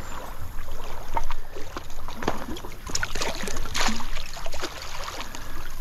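Water splashing and sloshing in irregular bursts as a hooked brown trout is brought in.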